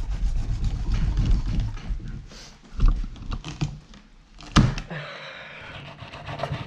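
A dull kitchen knife cutting through a striped bass behind the head on a wooden cutting board: low rubbing and sawing, then a couple of sharp knocks, the loudest about four and a half seconds in, as the blade chops down through the backbone.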